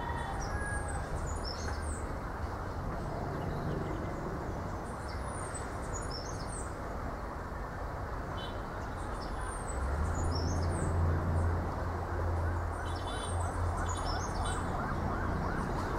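Outdoor breezy ambience: a steady rushing hiss of wind through palm leaves, with a low rumble that swells about ten seconds in. Over it, birds call in short, high, falling chirps that come in little groups every few seconds.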